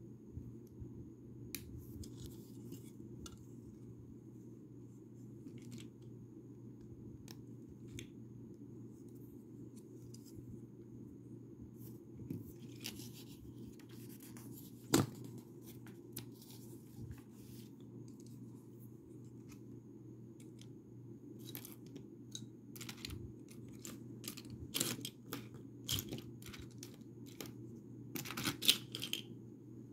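Plastic Lego pieces clicking and tapping as they are handled and pressed together. There are scattered sharp clicks, a louder one about halfway through, and a busier stretch with some rustling near the end, all over a steady low hum.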